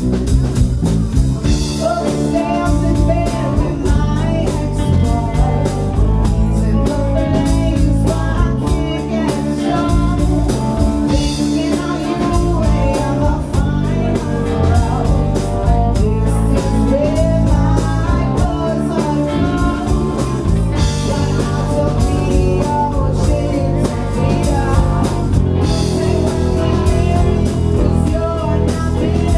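Live blues-rock band playing: a woman singing over two electric guitars, electric bass and a drum kit.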